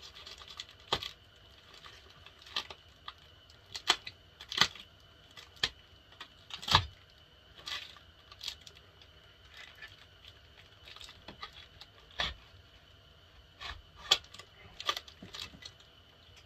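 Utility knife slicing through taped packing wrap, a string of irregular sharp snicks and crackles, a handful of them louder.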